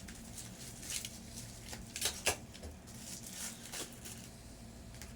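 Scratchy rustling and scraping of a heavily taped wrapping being pulled open by hand, in a few short bursts, the loudest about two seconds in.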